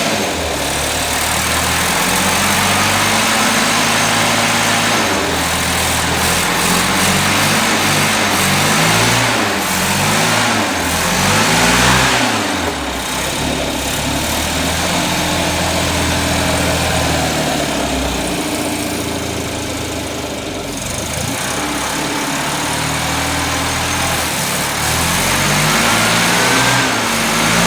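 1979 Datsun 210's A14 four-cylinder engine running and revved up and down several times, its pitch rising and falling between idle and higher revs. The engine has a misfire that the owner is trying to trace.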